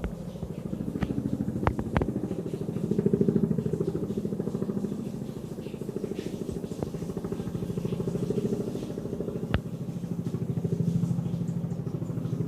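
Boeing CH-47 Chinook tandem-rotor helicopter flying past: a rapid, low thudding of rotor blades over engine noise. It swells louder about three seconds in and again near the end. A few sharp clicks stand out over it.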